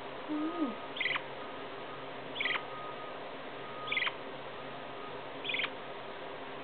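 Lineolated parakeet chirping: four short, high chirps spaced about a second and a half apart, each ending in a quick downward slide.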